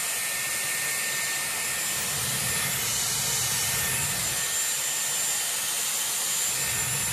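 Dyson Airwrap blowing air through its 30 mm curling barrel as a strand of hair is wound onto it: a steady rush of air with a thin, high motor whine running through it.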